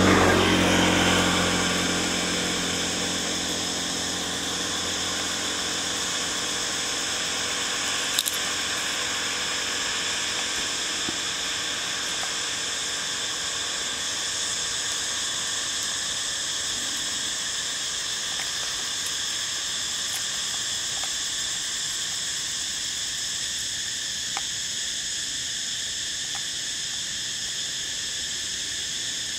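Steady, high insect chorus droning without a break. A louder low rumble fades out over the first couple of seconds, and there is one brief click about eight seconds in.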